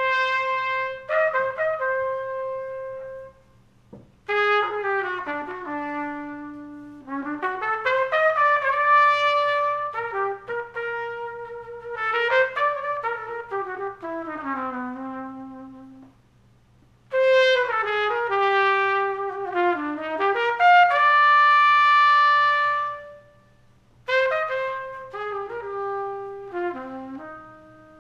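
Jazz trumpet playing melodic phrases, note by note, separated by brief pauses, over a faint steady low hum.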